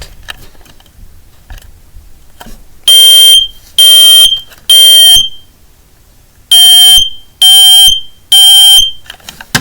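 Kidde i9040 smoke alarm sounding its test: two rounds of three loud, high-pitched beeps, the temporal-three alarm pattern, starting about three seconds in.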